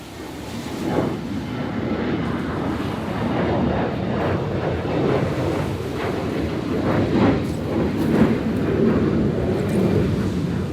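Heavy surf after a typhoon: waves breaking and washing in with a deep rumble and repeated splashes, swelling about a second in.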